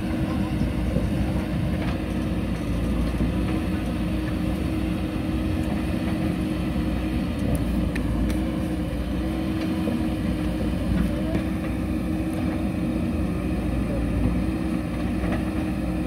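JCB backhoe loader's diesel engine running steadily, a low, even drone, while the backhoe arm works against a concrete bridge slab. A couple of faint clicks come about halfway through.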